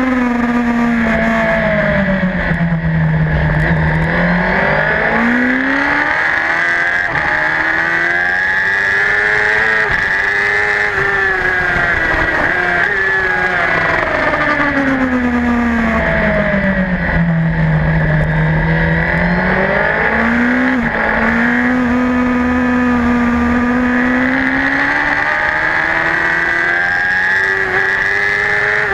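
Racing superbike's engine heard from a camera mounted on the bike, running hard at high revs, falling in pitch twice as it slows and then climbing back up through the revs, over constant wind rush.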